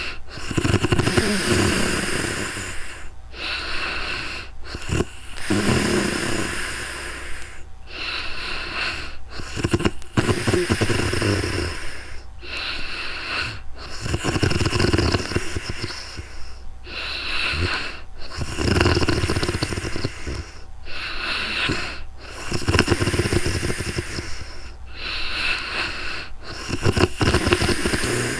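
A young woman snoring in her sleep: about seven rasping snores roughly four to five seconds apart, with a breathy sound between each one.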